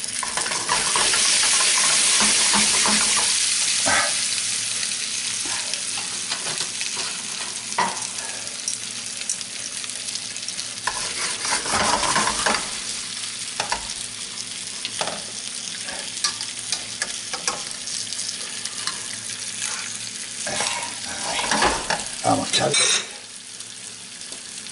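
Hake steaks and prawns sizzling as they fry in oil in a frying pan: a steady hiss, loudest in the first few seconds. A metal spatula scrapes and taps in the pan now and then, with a few louder knocks shortly before the sizzle drops near the end.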